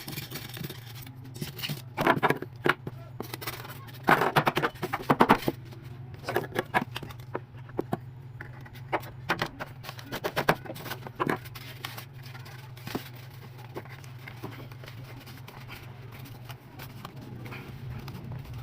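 Irregular clicks, knocks and scrapes of hands-on work, bunched in the first dozen seconds and sparser after, over a steady low hum.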